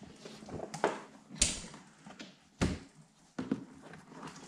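Leather motorcycle saddlebag being handled and turned over on a workbench: four sharp knocks and thuds, the loudest about a second and a half and two and a half seconds in, with rustling between.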